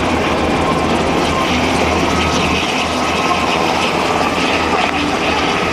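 UH-60 Black Hawk helicopter flying low past, a loud, steady drone of main rotor and twin turboshaft engines with a pulsing low rotor beat.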